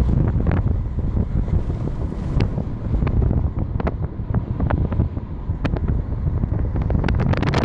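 Wind buffeting the phone's microphone in a moving car, over a steady low road rumble, with scattered sharp clicks throughout that grow thicker near the end.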